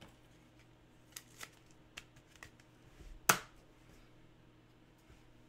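Trading cards being handled and slid off a stack by hand: a few faint ticks and light scrapes, then one sharp click about three seconds in.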